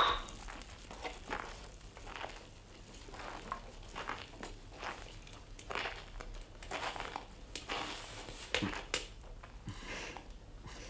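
Two clay beer mugs knocked together in a toast: one sharp clack at the start. It is followed by quiet, scattered crackles and rustles.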